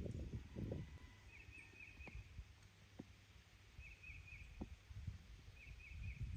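A small bird calling faintly in three short bursts of three or four quick, high chirps, about a second and a half apart. Soft low thumps and a few light taps sound underneath.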